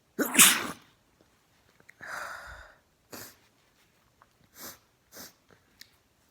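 A person sneezing once, loudly, about a quarter second in: a sneeze set off by chhinkni sneezing powder taken up the nose. Several softer, short breathy sounds follow.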